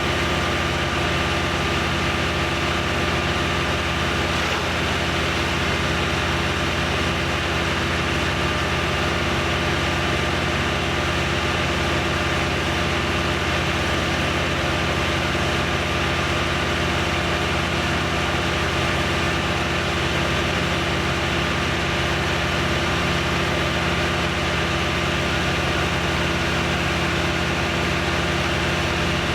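An engine idling steadily, its pitch and level unchanging throughout.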